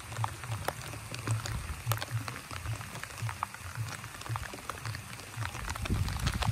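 Rain falling on leaves and branches: many irregular drop ticks over a steady low hum, with a stronger low rumble near the end.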